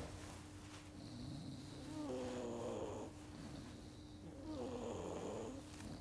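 Sleeping Labrador puppy snoring: two snores of about a second each, the first about two seconds in and the second about four and a half seconds in.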